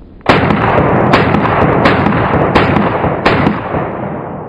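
Stag Arms AR-15 Model 1 semi-automatic rifle in 5.56 firing five shots at a steady pace, about one every 0.7 s.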